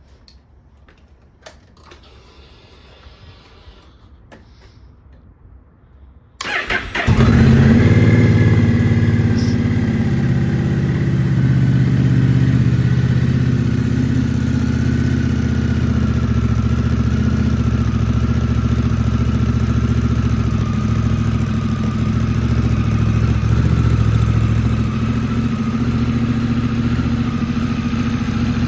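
Honda Rebel 1100's parallel-twin engine, fitted with a Coffman's Shorty slip-on exhaust, starting up about six and a half seconds in after a few faint clicks. It flares on catching, then settles into a steady idle, echoing in a garage.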